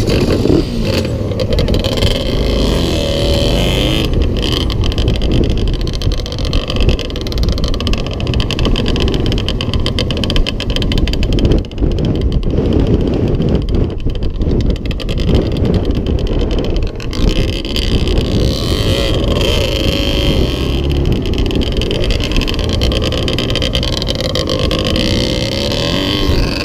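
Yamaha Grizzly 700 quad's engine running under way, its pitch rising and falling with the throttle.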